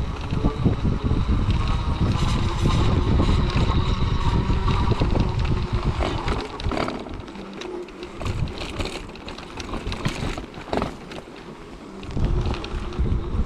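Wind buffeting the microphone and the rumble of a fat-tyred wheelchair with a front e-handbike attachment rolling over a dirt forest track. About six seconds in the rumble drops away, leaving scattered clicks and rattles as it moves slowly over leaf litter.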